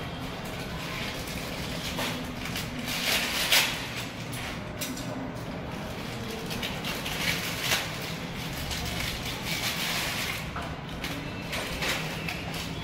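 Rustling and crinkling of plastic packaging in short, scattered bursts as a flexible water connection hose is handled and pulled out of its wrapper, over a steady background hiss.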